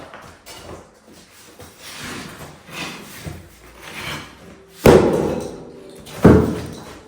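Lightweight aerated concrete blocks thrown into a metal skip: two loud crashes with a ringing tail, about a second and a half apart in the second half, after softer knocks and scrapes.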